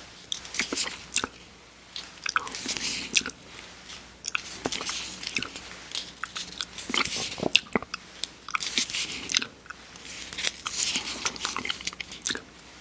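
Close-miked wet mouth sounds of licking and eating soft-serve vanilla ice cream from a cone: irregular sharp smacks and clicks of the lips and tongue, with short hissy slurps.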